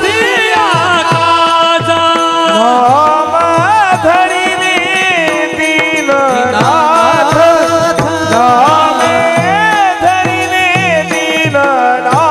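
Male singing of a Warkari devotional bhajan, the melody sliding and ornamented, accompanied by brass taal hand cymbals and a drum keeping a steady beat of about two strokes a second.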